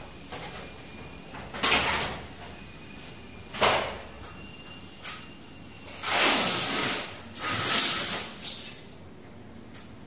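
Aluminium-framed glass sliding door panels being pushed along their track, knocking against the frame. There are sharp knocks, the two loudest about two and four seconds in, then two longer rolling slides from about six to eight seconds in.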